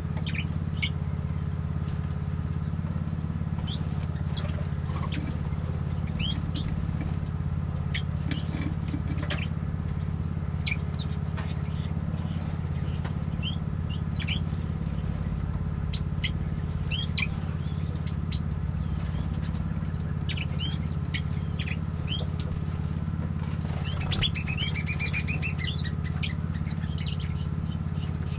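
Small aviary birds such as finches and waxbills chirping, with scattered short high calls and a quick run of twittering near the end. A steady low hum runs underneath, and two sharp ticks come a few seconds in.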